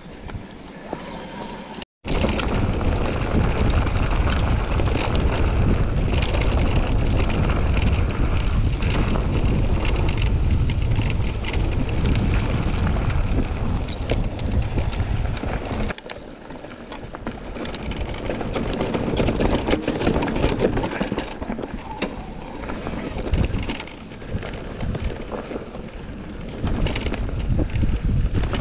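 Wind buffeting the microphone as an electric mountain bike rides an enduro trail, with the bike clicking and rattling over the rough ground. The sound cuts out completely for an instant about two seconds in.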